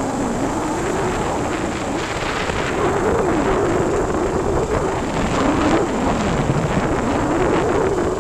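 Motorcycle engine running while being ridden slowly, its pitch wavering up and down, with wind rumble on the microphone.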